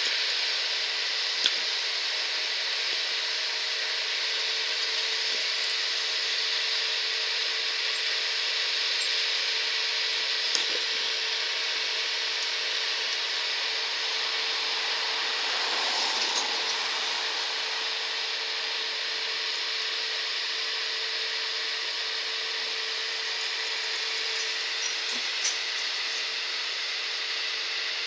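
Claas combine harvester running steadily while harvesting barley: an even mechanical whir with a constant hum underneath and a few sharp ticks here and there.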